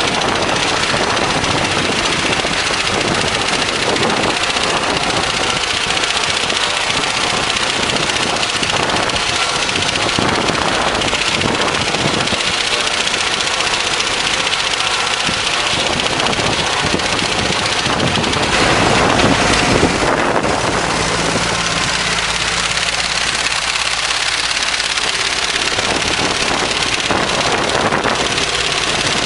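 Tractor-drawn hay mower running: a steady, loud mechanical noise with a dense rattle, and the tractor engine's low drone coming through more clearly past the middle.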